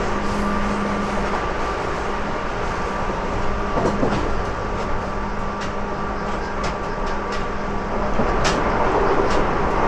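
Running noise inside a JR Kyushu 811 series electric train, the type with external-fan traction motors: a steady rumble with a steady whine running through it, and scattered sharp clicks in the second half.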